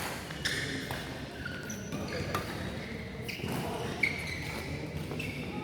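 Badminton doubles rally: sharp racket hits on the shuttlecock roughly every two seconds, with short high squeaks of shoes on the court floor in between.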